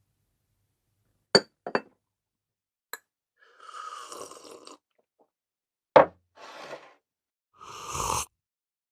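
A ceramic cup clinks twice and ticks once, then there are noisy sipping sounds. About six seconds in the cup is set down with a sharp knock, followed by more sipping.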